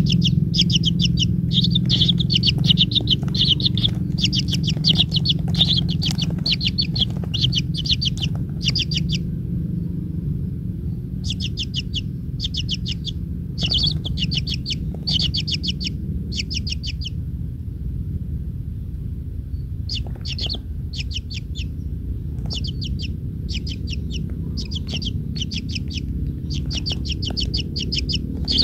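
A bird calling in repeated short bursts of rapid, high chattering notes, with a couple of short pauses, over a steady low rumble.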